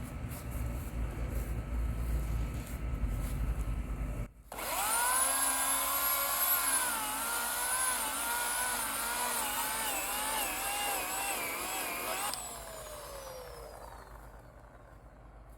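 Low rumbling noise for the first few seconds, then a brief cut-out. The Oregon CS1500 15-amp corded electric chainsaw then whines at speed, its pitch dipping again and again as the chain bogs into the trunk and recovering. About twelve seconds in the trigger is let go and the whine falls in pitch as the motor coasts down.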